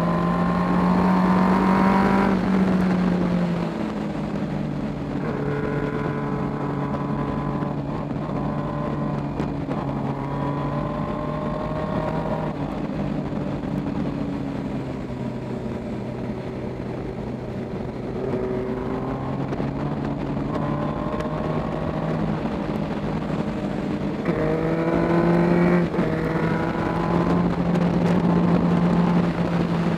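Suzuki GSX-R sport bike's engine under way, its pitch repeatedly climbing and dropping as the rider works the throttle and gears through bends. There are louder climbs in pitch at the start and twice near the end, over a steady rush of wind and road noise.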